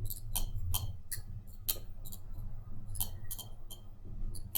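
Sharp, irregular little clicks and ticks of a small metal blade picking and scraping at an iPhone's bottom speaker grille, about a dozen in all, over a faint steady low hum.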